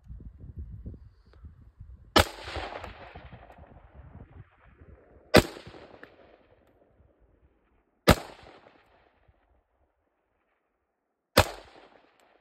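Four single shots from an AR-15 rifle, about three seconds apart, each a sharp crack followed by an echo that fades over a second or two. A low rumble on the microphone comes before the first shot.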